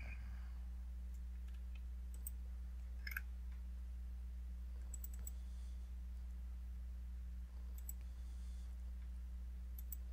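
Computer mouse clicking a handful of times, some clicks in quick pairs, over a steady low electrical hum.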